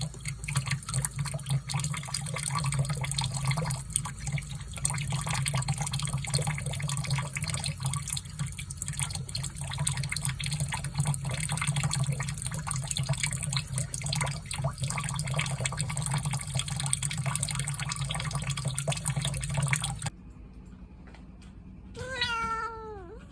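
Tap water running steadily from a faucet, cutting off abruptly about twenty seconds in. Shortly after, a cat meows once, a call that falls in pitch.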